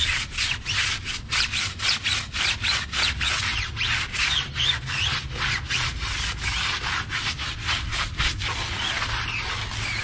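A tyre wet with diluted wheel cleaner being scrubbed in quick back-and-forth strokes, about three a second, smoothing out near the end.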